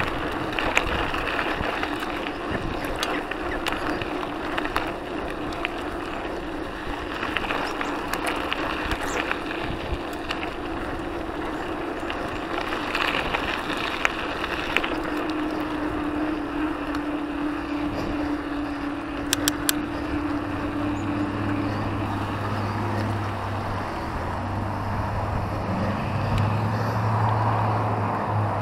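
Mountain bike rolling along a gravel trail, with tyre crunch, a steady rushing noise, and scattered clicks and rattles from the bike and the bag-strapped action camera jolting over the ground. In the second half a steady humming tone joins in, deepening to a low hum for the last several seconds.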